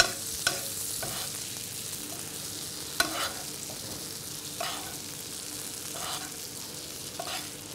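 Beef tenderloin steaks sizzling steadily in hot butter in a tilted nonstick frying pan, as the butter is basted over the meat with a metal spoon that scrapes and taps the pan a few times.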